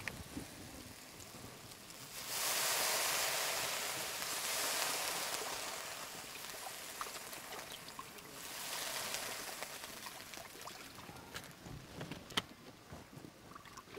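Water poured from a plastic bottle into an iron wok of onion-and-spice masala frying in hot oil, sizzling as it hits: a loud burst about two seconds in that fades over several seconds, and a second, smaller one a few seconds later as more water goes in. This is the step of adding water to the fried masala base for a fish curry.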